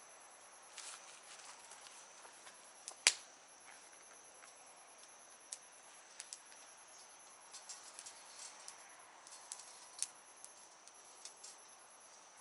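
Wood campfire crackling with scattered small pops and one sharp loud crack about three seconds in, over a steady high-pitched insect trill.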